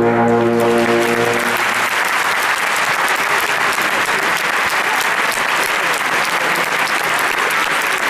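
Audience applauding, dense and steady. In the first two seconds the wind band's final held chord is still sounding under the clapping, then stops.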